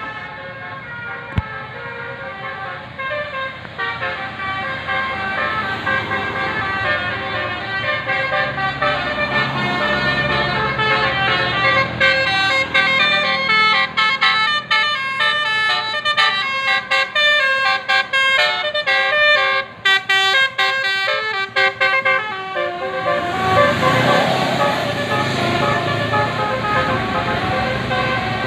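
A bus's telolet musical air horn (basuri) playing a melody. Held notes come first, then a quick run of short notes in the middle. Near the end a louder rush of noise joins in.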